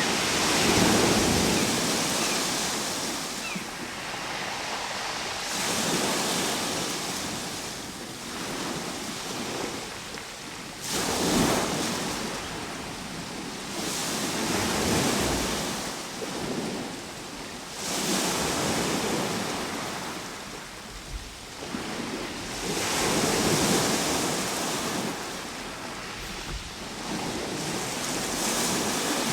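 Ocean waves breaking and washing ashore: a steady rush of surf that swells and falls back in surges every four to six seconds, a few of them breaking more sharply.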